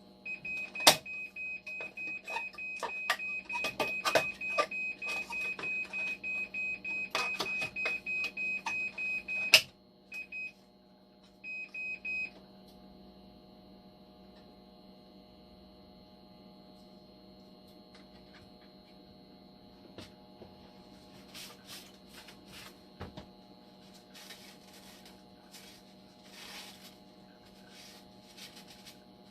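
Hemodialysis machine alarm beeping rapidly at one steady pitch, about three beeps a second, over handling clicks; it stops after about nine seconds, sounds two short beep groups, then leaves only the machine's steady low hum with a few faint clicks.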